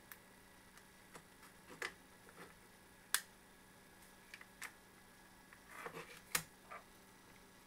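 Small plastic clicks and taps from the parts of a Hama USB laser mouse being handled and fitted together during reassembly. The clicks are irregular and scattered, with a sharp one about three seconds in and a cluster of clicks around six seconds.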